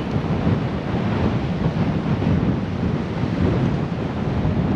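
Strong wind buffeting the microphone: a steady, rough low rumble.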